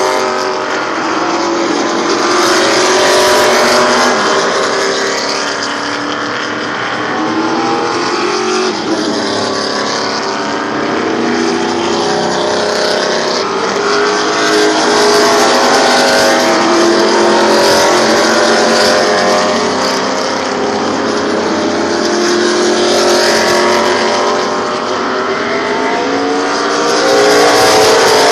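A field of race cars running past one after another, many engines sounding at once. Their notes rise and fall as each car goes by.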